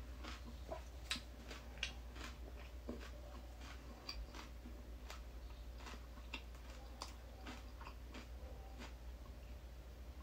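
Close-miked chewing of a mouthful of crunchy Thai cucumber salad: irregular small crisp crunches, several a second.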